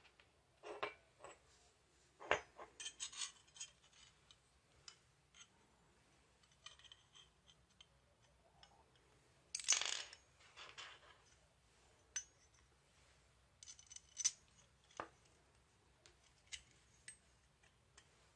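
Small metal parts handled on a tabletop while a black metal pan-and-tilt servo bracket is put together: scattered light clicks and clinks of screws, nuts and bracket plates, with a louder rattle about ten seconds in.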